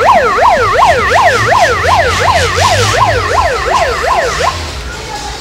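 Electronic siren sounding a fast yelp: a loud tone falling in pitch over and over, about three or four sweeps a second. It starts abruptly and cuts off about four and a half seconds in, over a low vehicle rumble.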